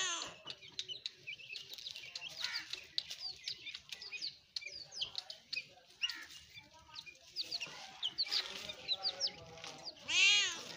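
A tabby cat meows loudly right at the start and again about ten seconds in, each a single rising-then-falling call. Between the two meows, birds chirp busily in quick short notes.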